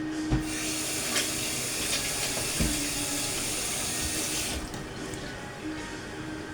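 Kitchen tap running into a sink for about four seconds, then shut off, with a couple of dull knocks while it runs.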